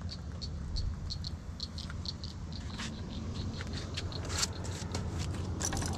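Short high chirps repeating about three times a second over a steady low rumble, thinning out in the second half, where a few sharp handling clicks come in.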